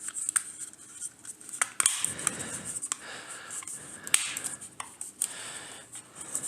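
Irregular small clicks and scrapes of a plastic computer mouse shell being handled and pressed together during reassembly.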